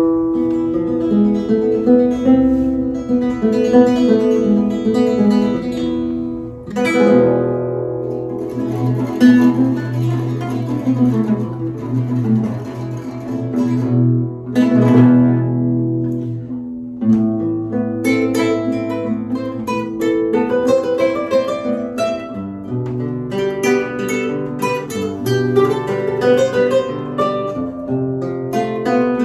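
Four nylon-string classical guitars playing an instrumental piece together, a plucked melody over chords, with sharp strummed chords about 7 and 15 seconds in.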